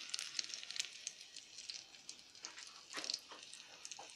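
Hot oil crackling and spitting in a frying pan, thinning out after about two seconds, then a few soft knocks near the end.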